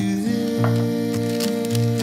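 Background music: held chords over a bass line repeating its low notes.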